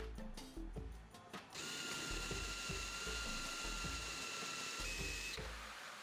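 A power tool runs with a steady high whine for about four seconds, starting about a second and a half in and stopping near the end, over background music with a steady beat.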